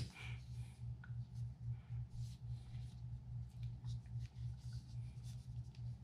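Faint small clicks and rubbing from hands handling a pen-shaped SOG folding multi-tool, its metal parts shifting as it is turned and partly opened, over a low steady hum.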